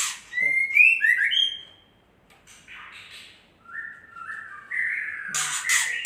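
White-rumped shama (murai batu) singing clear, rising whistled phrases in two bouts with a short pause between. A few harsh noisy notes come near the end. The bird is singing back at a rival male shama it feels challenged by.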